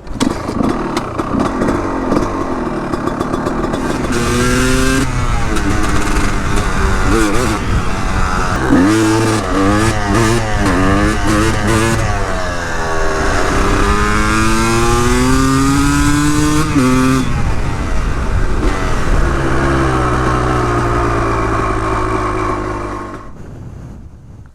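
Honda CR250 two-stroke motorcycle engine accelerating hard. Its pitch climbs and drops back again and again as it pulls through the gears, and it dies away near the end.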